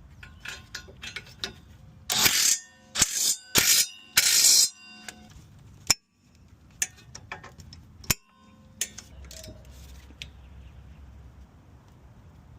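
Metal tool and brake-part noise: four short loud bursts with a metallic ring a couple of seconds in, then scattered sharp clicks and clinks.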